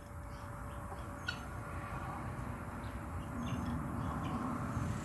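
Chickens clucking softly over a low steady background rumble, with a few faint clicks of ice as a hand moves in a glass bowl of ice water.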